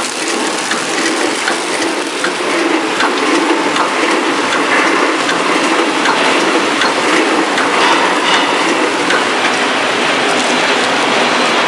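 Mask packaging machine running: a steady mechanical clatter full of quick clicks, which grows a little fuller about two seconds in.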